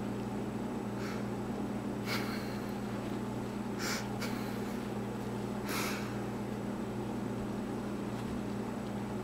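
A steady low hum with about five short, breathy puffs of air close to the microphone, spread over the first six seconds.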